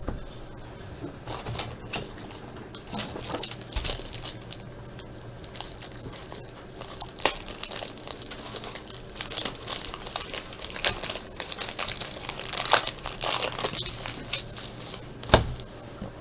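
Foil trading-card pack wrappers crinkling and tearing as baseball card packs are opened and the cards handled, in irregular bursts, with one sharper tap about fifteen seconds in.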